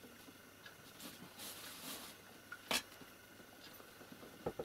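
A kitten climbing over boxes and a heap of cloth: faint rustling with a few light knocks, the sharpest one just past the middle and a pair of small clicks near the end.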